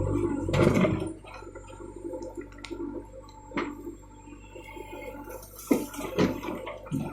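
JCB backhoe loader's diesel engine running with a steady low hum, with wet mud squishing and sloshing. The first second is louder, and a few separate knocks and clunks follow as the bucket works.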